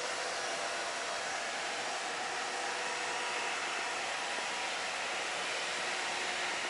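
Steady rushing hiss with a few faint steady hums underneath, unchanging throughout.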